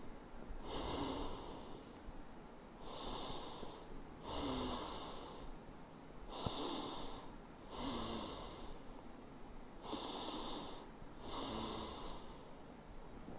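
A man breathing slowly and deeply in and out while holding a child's pose stretch, several full breaths in a steady rhythm. There is a single small click about halfway through.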